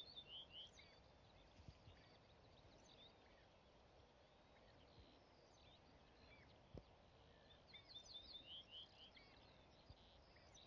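Male ortolan bunting singing, faint: two song phrases, one at the start and one about eight seconds in, each a few quick repeated high notes followed by two or three lower, slower notes. Other birds call faintly in the background.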